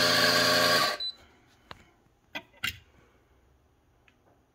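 Stepless espresso grinder's motor grinding coffee beans in a short top-up burst that stops about a second in, adding to a dose that came out light. A few light clicks and knocks follow.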